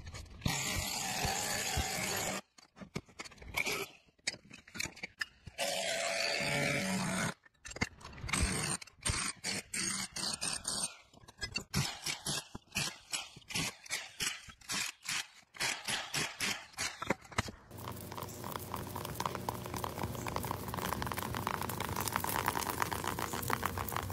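Metal tool scraping and striking a corroded electric motor as its copper windings are cut out of the stator: rough scraping at first, then a run of sharp knocks, two or three a second. About 18 seconds in it gives way to a steady mechanical whirr.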